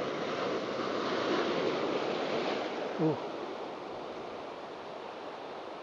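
Ocean surf breaking and washing over shoreline rocks. The wash is loudest in the first few seconds and dies away.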